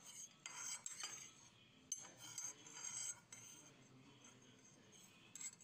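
Metal spoon stirring milk in a ceramic cup, with faint clinks and scrapes against the cup's sides and bottom.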